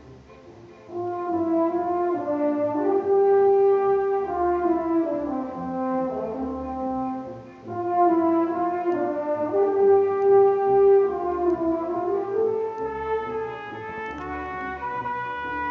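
School orchestra playing a concert overture: after a soft opening second, a loud sustained melody enters, eases briefly around seven and a half seconds in, then comes back with the same phrase.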